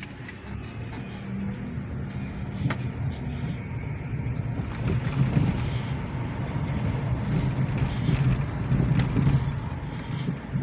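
A car's engine and road noise heard from inside the cabin while driving slowly, getting louder over the first few seconds as the car picks up speed.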